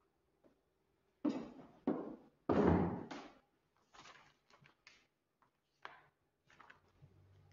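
A string of sudden knocks and thuds at uneven intervals, the loudest a heavy thud about two and a half seconds in, with fainter knocks following.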